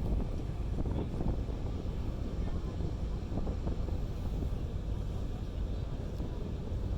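Wind buffeting the microphone aboard a moving car ferry: a steady low rumble.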